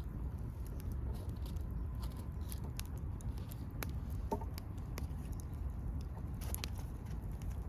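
Riverside ambience: a steady low rush of flowing water, with scattered faint clicks and crackles and one short chirp about four seconds in.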